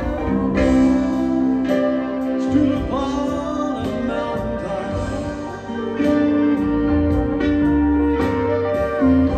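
Live band with a horn section playing a slow instrumental passage between sung lines, long held notes over bass and drums.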